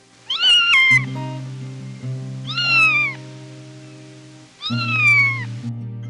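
Orange tabby kitten meowing three times, high-pitched, each meow falling in pitch, the first broken in two.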